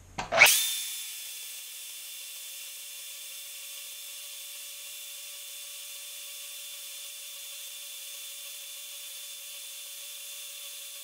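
DeWalt portable band saw starting up with a rising whine about half a second in, then running at a steady pitch as its blade slowly cuts through a 3/4-inch square mild steel bar.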